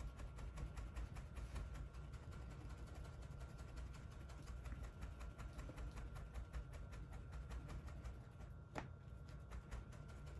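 A folding hand fan waved quickly back and forth: soft, rapid, evenly repeating swishes of moving air, with one sharper click near the end.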